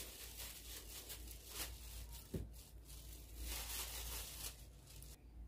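Faint rustling and crinkling of a thin plastic bag as a hand reaches in and takes out cornstarch-coated potato slices, with soft irregular handling noises. The rustling stops near the end.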